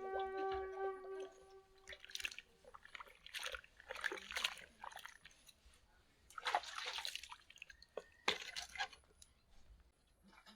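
Water splashing and sloshing in several short, irregular bursts, with a held flute note fading out in the first two seconds.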